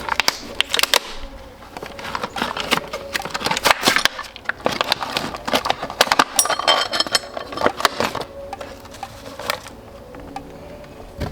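Packaging being opened and handled: dense, irregular crinkling and clicking.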